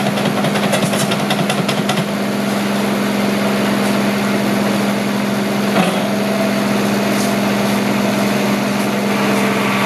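Hitachi mini excavator's diesel engine running steadily under work, with a run of clicks in the first two seconds and a single knock about six seconds in.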